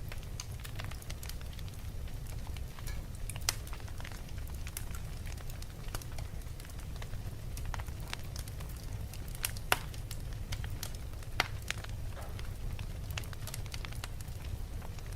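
Fire crackling: a steady run of small snaps and pops, with a few louder pops, over a low steady rumble.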